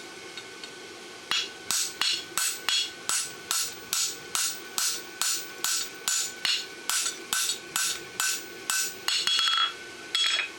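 Hand hammer striking a farrier's fuller held on the shoe's steel against the anvil, creasing the nail groove: steady blows about three a second, each with a metallic ring. A quick flurry of closer strikes comes near the end.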